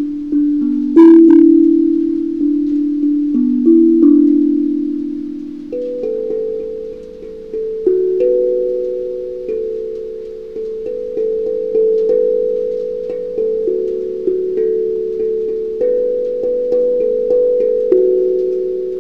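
15-note steel tongue drum (tank drum) played with ball-tipped mallets: a slow melody of single struck notes, each ringing on and overlapping the next. The hardest stroke, with a bright metallic attack, comes about a second in.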